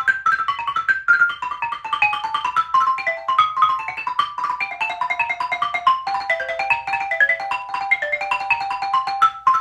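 A wooden-bar xylophone played with two mallets in a fast, unbroken run of short ringing notes, several strokes a second, the line stepping down and back up. One hand keeps to its notes while the other moves the melody off the beat.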